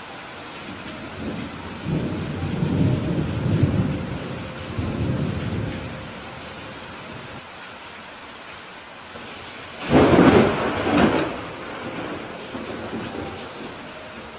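Steady rain with thunder: a low rolling rumble through the first half, then a sudden, louder thunderclap about ten seconds in that rumbles on for two or three seconds before fading back into the rain.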